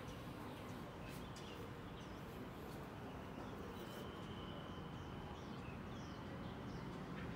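Faint outdoor ambience: small birds chirping now and then, with short high calls that slide downward, over a steady low background rumble.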